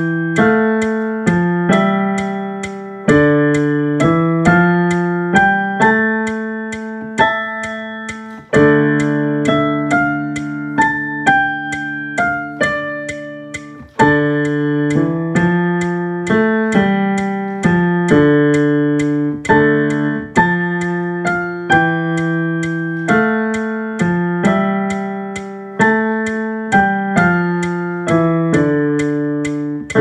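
Digital piano being played: a quick stream of notes over held chords, with brief pauses between phrases about eight and a half and fourteen seconds in.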